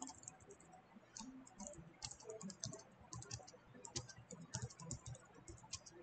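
Faint typing on a computer keyboard: irregular runs of keystrokes with short pauses between them.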